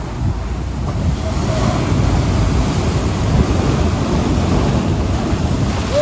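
Ocean surf breaking and washing over shoreline rocks, a rushing roar that swells about a second in, with wind buffeting the microphone.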